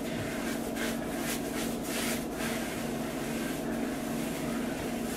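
Paintbrush drawn along a pine bed rail, brushing on varnish in a few short, irregular strokes, over a steady electrical hum.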